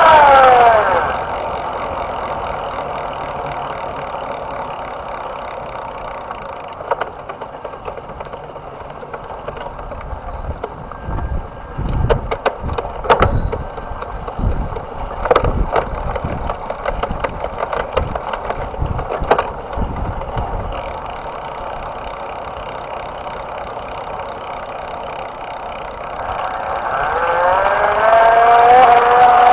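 Electric bike motor whining as it winds down in the first second, then quieter running with a run of irregular knocks and clicks in the middle, and the motor whine rising again near the end.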